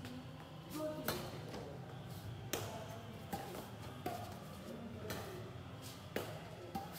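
Badminton rackets striking a shuttlecock in a rally: about seven sharp cracks, roughly one a second, each ringing briefly in the hall.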